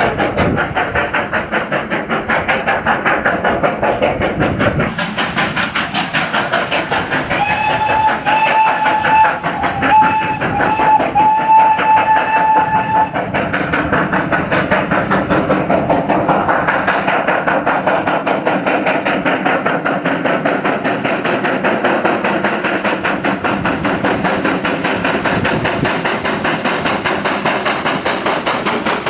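GWR Castle class four-cylinder 4-6-0 steam locomotive Nunney Castle working hard on a climb, its exhaust beating in a fast, even rhythm. About a third of the way in, its whistle sounds for several seconds in a few broken blasts.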